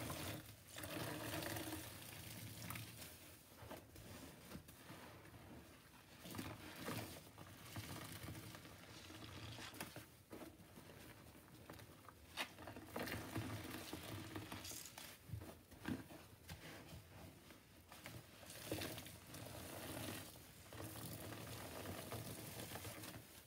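Soft foam sponges full of mouthwash lather squeezed and kneaded by hand in a stainless steel sink: uneven wet squelching of the foam, with liquid splashing and dripping back into the suds and now and then a sharp click.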